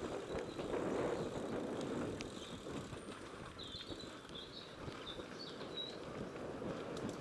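Mountain bike rolling fast along a gravel trail: steady tyre and wind rumble on the camera microphone. A few faint bird chirps come through in the middle.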